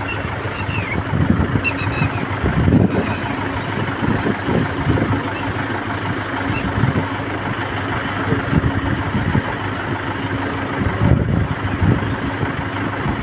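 Wind rumbling on the microphone in uneven gusts over a steady low hum, with a few faint bird chirps in the first two seconds.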